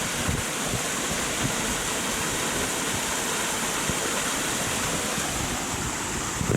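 Rain-swollen mountain stream rushing steadily, an even hiss, with some wind rumble on the microphone.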